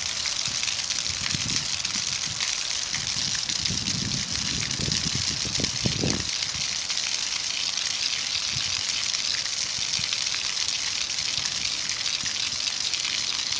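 Water gushing in a steady stream from a wall-mounted drain pipe and splashing onto wet pavement, a constant hiss of falling water.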